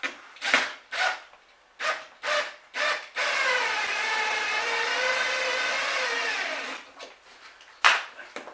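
Handheld power tool: a few short blips, then a steady whine for about three and a half seconds, its pitch dipping slightly midway before it stops. A sharp knock comes near the end.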